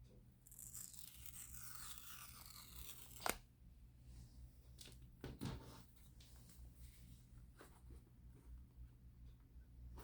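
The seal strip being torn off an iPhone 16 Pro Max box: a faint tearing lasting about three seconds that ends in a sharp click. Light rustling of packaging and a soft knock follow.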